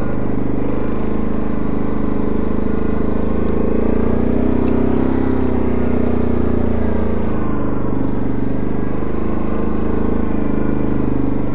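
Yamaha Grizzly ATV's single-cylinder engine running steadily as the quad is ridden along, heard close up from on board. The engine note rises a little about four seconds in and eases back down a few seconds later.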